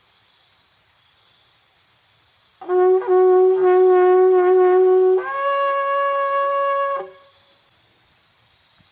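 Shofar blown in one blast: a low note, broken briefly twice, then jumping up to a higher note that is held for about two seconds before it stops.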